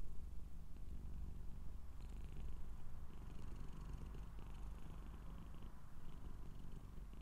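Scottish Straight cat purring steadily, close-miked by a lavalier microphone right beside it.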